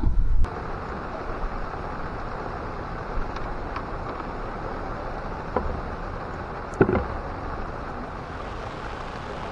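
Heavy rain falling on a lake's surface, a steady hiss, after a brief loud handling rumble at the very start. Two short knocks come just past the middle.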